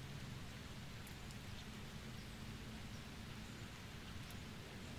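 Faint steady rain hiss with a few light, scattered drip ticks.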